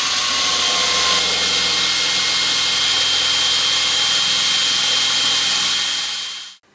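Cordless drill running steadily as a twist bit with a rounded tip bores a hole for a 6 mm dowel into a chair's wooden rail, through an existing screw hole. The drilling cuts off abruptly near the end.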